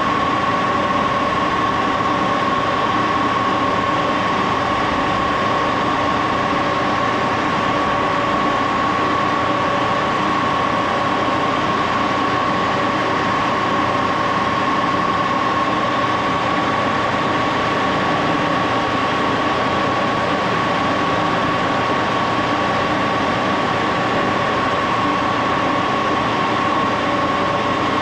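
An 80-year-old Axelson gear-head engine lathe running steadily, its headstock gears giving a constant high whine over a mechanical hum. The whine fades out right at the end.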